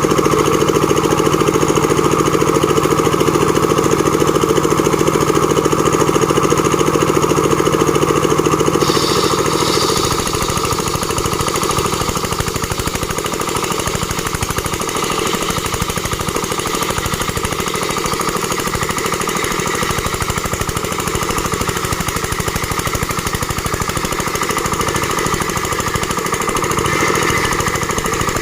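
Sawmill machine for making wooden boards running loudly. About ten seconds in its sound changes, the steady low hum giving way to a rougher, rapid rattle.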